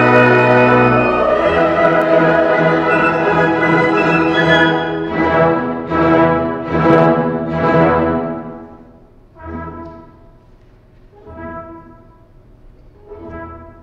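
Live symphony orchestra playing, brass prominent over the strings. Loud sustained chords give way about five seconds in to four accented chords about a second apart, then the music drops to three quieter short phrases.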